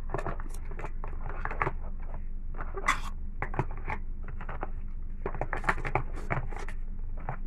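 Unboxing handling noise: scattered small clicks, taps and rustles of a phone box and its packaging being handled, over a steady low hum.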